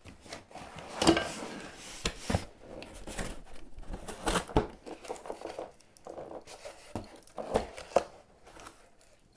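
Long cardboard box being opened by hand: cardboard flaps and packing rustling and scraping, with some tearing and a few sharp knocks.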